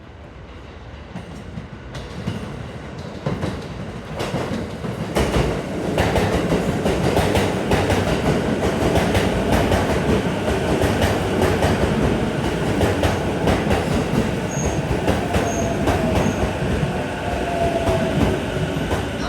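JR East E233-6000 series electric train pulling into a station: it grows louder over the first six seconds as it approaches, then its wheels clack steadily over the rail joints as it runs along the platform, with a faint inverter whine from its Mitsubishi IGBT VVVF drive in the second half.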